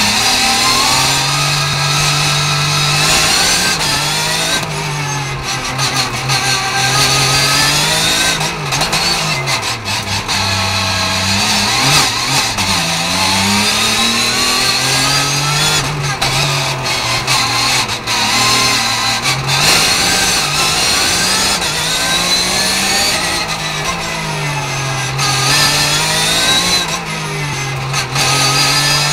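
Porsche 991 GT3 Cup Gen. II's flat-six racing engine heard from inside the cockpit, repeatedly revving up hard and dropping back as the car accelerates out of tight bends in first and second gear and brakes for the next, with quick gearshifts.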